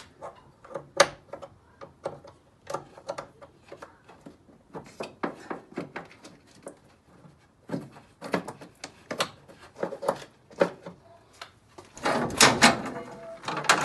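Scattered light clicks, clinks and knocks of hand tools and metal being handled, as when a car battery's terminal is being undone. A busier, louder run of knocks and rustling comes near the end.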